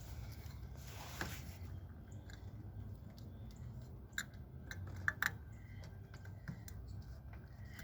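Faint small clicks and ticks of a throttle cable being slipped into the groove of a throttle body cam and wrapped around it, with a few sharper clicks about four to five seconds in, over a low steady hum.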